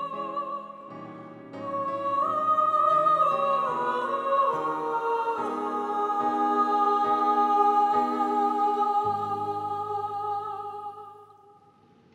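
Slow film-score music: a high, sustained melody line moving in long held notes over low chords, fading out over the last two seconds.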